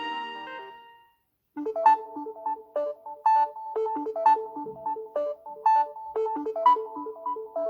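Samsung Galaxy S10 ringtones. The end of one tone fades out in the first second, then after a brief silence a new ringtone starts about a second and a half in: a repeating melody of short, quick notes.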